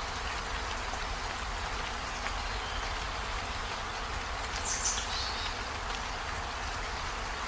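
Steady rain falling in an even hiss, with a brief high chirp about five seconds in.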